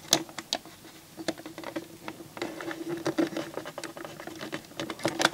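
Irregular small clicks, taps and scratches of a pointed tool and fingers working at the plastic disc-loading mechanism of a CD player, around its motor pulley and drive belt.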